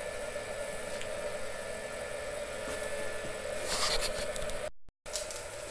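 Small 12-volt blower fan running with a steady hum, pulling air through a charcoal gasifier to purge the air from it during start-up. A brief rustle of handling comes just before the four-second mark, and the sound cuts out for a moment near the end.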